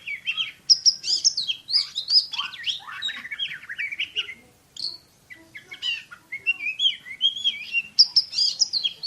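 Oriental magpie-robin (kacer) singing a fast, densely packed run of varied chirps and whistles, the rapid-fire 'shooting' style of song, with a short break about halfway through.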